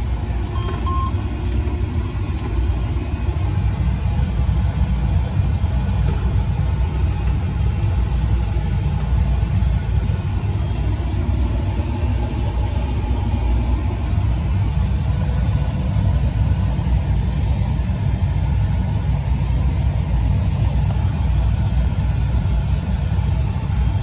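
Fendt 728 Vario tractor running steadily, heard from inside its cab as it pulls a baler along the swath: a steady low rumble.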